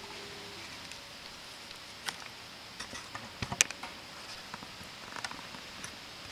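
Knife blade shaving curls down a wooden stick to make a feather stick: scattered scraping cuts and small clicks, the sharpest about three and a half seconds in.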